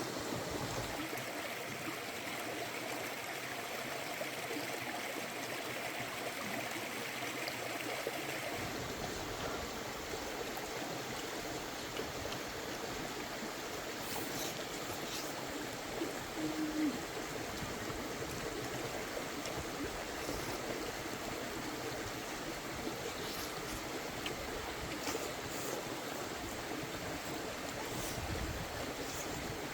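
Water of a stream or waterfall running steadily, its sound shifting toward a deeper rush about eight seconds in, with a few faint clicks over it.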